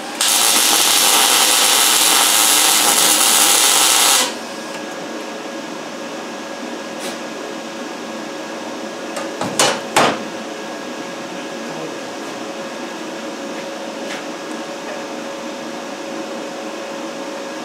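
MIG welder arc hissing steadily for about four seconds, then stopping suddenly. Later come two sharp clicks close together.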